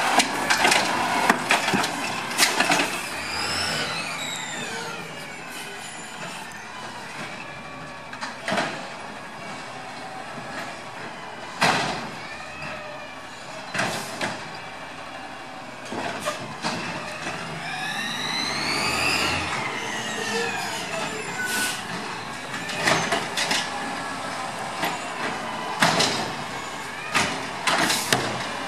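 Automated side-loader garbage truck (2013 LNG Peterbilt 320 with Amrep HX450 body) working a street: a rising-then-falling mechanical whine twice, consistent with the arm cycling, and sharp knocks and bangs from carts being dumped and set back down, over the running truck.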